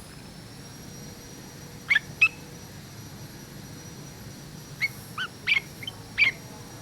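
Pet yellow-vented bulbul giving short, sharp chirps: two close together about two seconds in, then a quick run of five about five seconds in.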